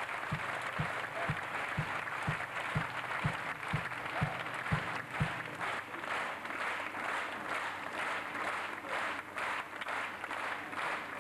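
Circus audience applauding. Under the clapping, a low steady beat about twice a second stops about five seconds in.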